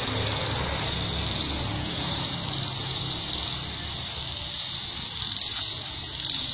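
Steady high-pitched insect chirring with no break, over a low rumble.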